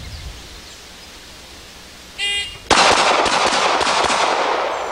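A shot timer's short start beep, then half a second later a Smith & Wesson Sigma semi-automatic pistol fired in a fast string of paired shots over about a second and a half, a double-tap drill of two shots on each of three targets, the last reports trailing off.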